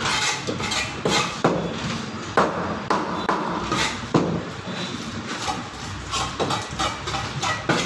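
Cleaver chopping through rohu fish on a cutting block, with sharp chops coming about once a second.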